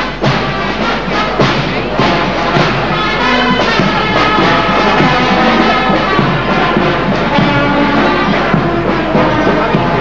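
Brass band music playing steadily, held notes stepping from one pitch to the next.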